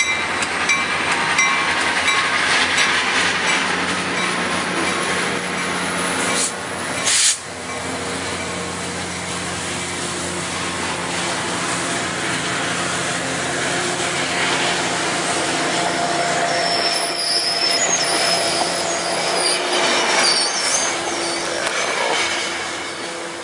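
Coaster commuter train departing: the F40PH-2C diesel locomotive pulls away, then its bilevel coaches roll past with a steady rumble and clatter of wheels on rail, with a short sharp knock about seven seconds in. The sound fades near the end as the last cars go by.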